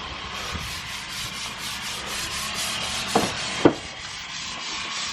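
Quick repeated rubbing strokes of a hand tool scraping over a cement wall surface, with two short knocks a little past halfway.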